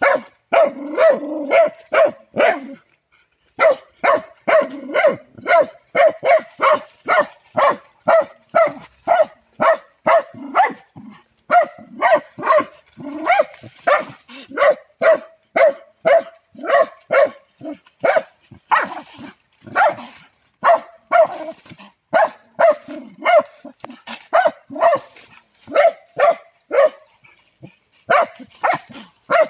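A dog barking repeatedly, about two barks a second, at a civet caught in a snare, with a short pause about three seconds in.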